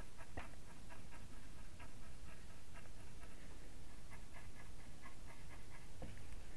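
Small paintbrush dabbing acrylic paint onto a hardboard panel: a run of short, irregular scratchy taps over a low steady hum.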